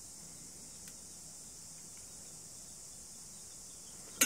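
Faint steady high-pitched hiss of workshop background, then near the end a few sharp metallic clicks as the steel scriber and steel rule touch the steel box section during marking out.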